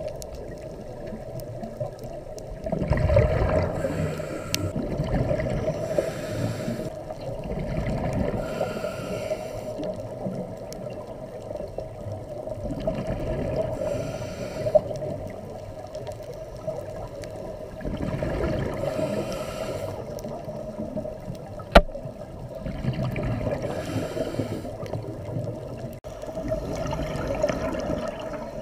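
Scuba regulator exhalations heard underwater, each a gurgling rush of bubbles every few seconds over a steady underwater background, with one sharp click about 22 seconds in.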